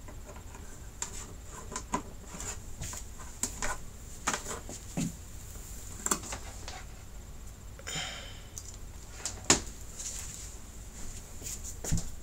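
Scattered light clicks and knocks of handling noise, with a louder scrape about eight seconds in, over a faint steady high tone.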